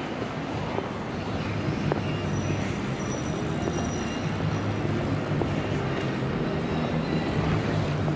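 City street ambience with a steady low rumble of motor traffic.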